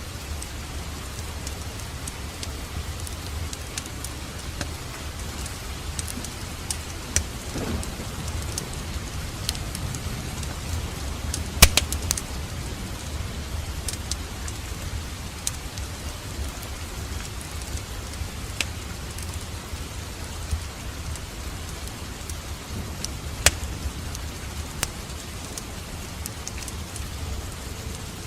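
Fireplace fire crackling steadily with a low rumble of flame and scattered sharp pops, the loudest about twelve seconds in.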